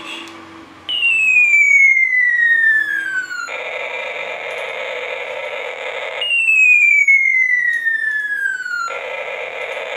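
Electronic sound effect played twice: a falling whistle-like tone lasting a couple of seconds, then an abrupt switch to a steady harsh hiss for about three seconds, like a cartoon falling-bomb whistle and blast.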